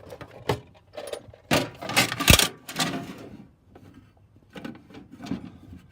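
Tools and a drill bit set being handled in a metal tool chest drawer: scattered clicks, rattles and knocks, with one louder knock about two seconds in.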